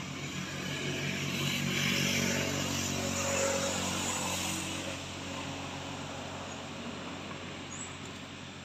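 A motor vehicle driving past, its engine sound growing louder to a peak about two to three seconds in and then fading away.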